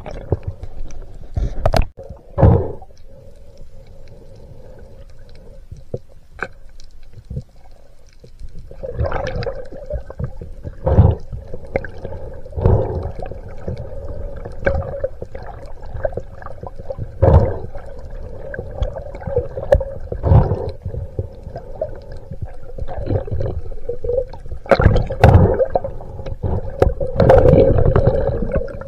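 Underwater sound heard through a diver's camera: a steady hum with about a dozen dull thumps and rushes of water as the spearfisherman swims and kicks his fins.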